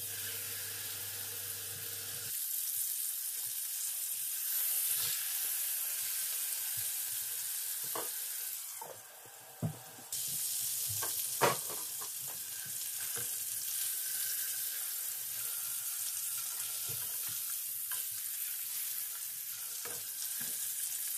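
Marinated chicken frying in hot oil in a nonstick pan: a steady sizzling hiss. A few sharp clicks stand out, and the sizzle drops briefly a little before halfway.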